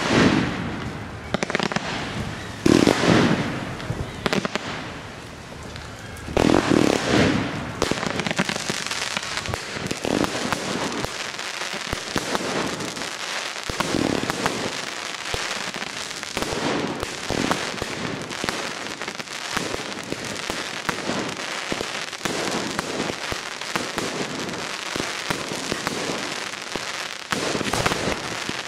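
Fireworks display: three big shell bursts go off with echoing booms in the first seven seconds, then a long dense run of crackling and popping.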